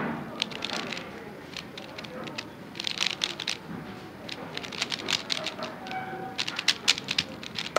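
A 3x3 Rubik's-type puzzle cube being turned fast by hand in a speedsolve: quick runs of plastic clicks and clacks as the layers snap around, with short pauses between turn sequences.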